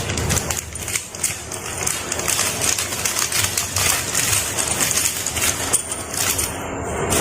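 A spoon stirring dhokla batter in a bowl just after Eno fruit salt has been added, a dense run of quick clicks and scrapes with a fizzy hiss.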